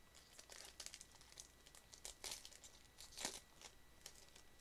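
Faint, irregular crinkling and crackling of a plastic wrapper handled in the hands, as a new pack of trading-card sleeves is opened.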